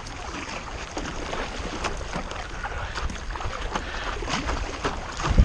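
Rain falling on a lake around a stand-up paddle board, many small drop ticks over a steady wash, with paddle strokes in the water and a low wind rumble on the microphone. A loud low bump comes right at the end.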